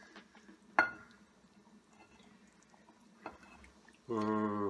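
A plastic serving spoon knocking and scraping in a nonstick pan while ladling chicken pieces in thick spinach gravy: one sharp knock about a second in and a softer one a little after three seconds. Near the end a man's voice gives a short steady hum.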